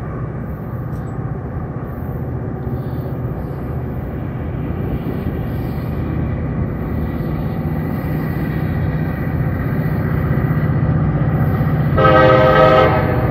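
Approaching freight train led by EMD diesel locomotives: a low engine rumble growing steadily louder, then one short locomotive horn blast of about a second near the end.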